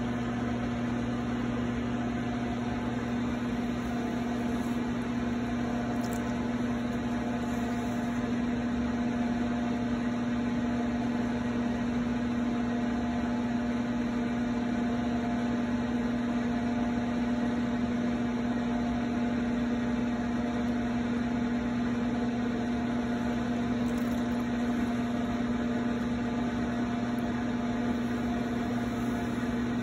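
Electric potter's wheel motor running at steady speed: a constant hum with one strong low tone.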